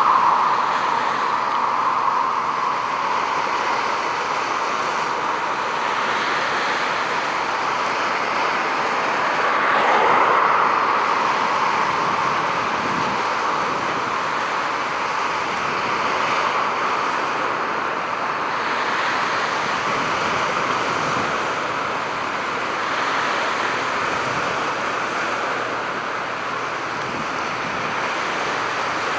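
Steady rush of distant road traffic, swelling briefly about ten seconds in.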